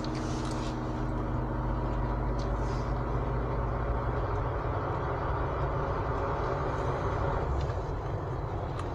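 Steady drone of a car's engine and tyres on the road, heard from inside the moving car, with a broad rush of road and wind noise.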